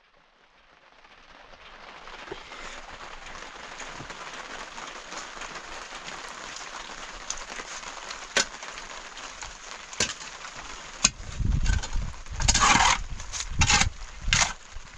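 Steady hiss of rain, fading in after a cut, with a few sharp clicks. Near the end, loud low thumps and rustling bursts take over.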